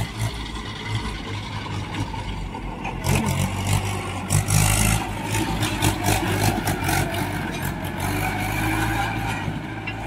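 Mahindra 475 DI tractor's diesel engine running steadily as it drives past pulling a trolley loaded with mud, with a series of rattling knocks through the middle of the pass.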